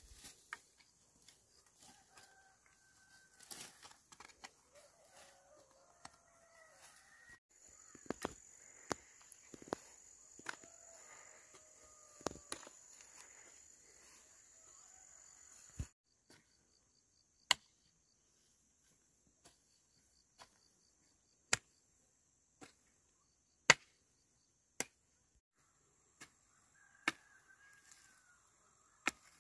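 Chickens calling in short, wavering cries over a run of sharp knocks. In the second half the knocks come singly, one every second or two, with quiet between.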